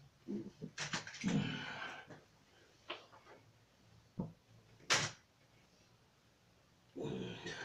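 Scattered rustling and knocks of bedding and a bed being handled, with a brief sharp sound about five seconds in, the loudest of them, and a short burst of noise near the end.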